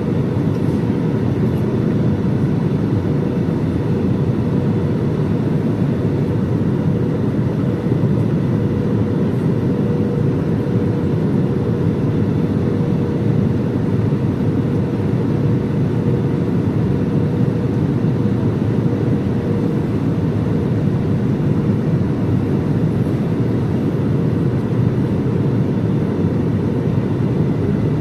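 Steady cabin roar inside an Airbus A320-216 on approach: airflow and engine noise, with a faint steady tone above it.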